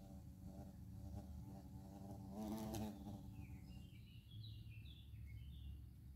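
A hornet buzzing its wings on a window pane: a faint steady buzz that swells briefly about halfway through and stops soon after. Faint bird chirps follow.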